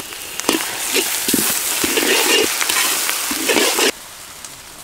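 Ginger-garlic paste sizzling loudly as it drops into hot oil with onions, dried chillies and curry leaves in a large wok, with a few ladle clicks against the pan. The sizzle cuts off abruptly nearly four seconds in.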